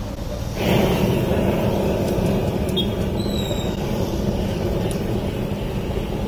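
Handheld gas blow torch flame hissing steadily as it is played over a heap of grated cheese to melt it; the noise jumps up sharply about half a second in, as the torch is opened up, then holds steady.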